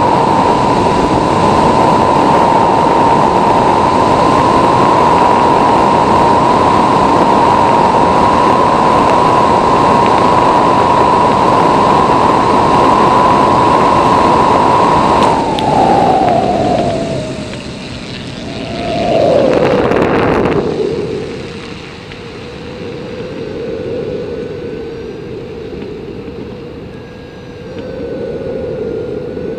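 Aerotow: wind rushing over the microphone, with the tow plane's engine droning at a steady high pitch. A little past halfway the engine note falls to lower revs, wavers and settles at a lower steady pitch. The wind noise then drops off sharply.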